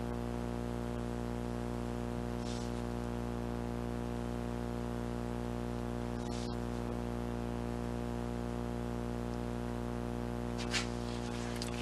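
A steady, unchanging low hum with many evenly spaced overtones, with a few faint clicks, the clearest one near the end.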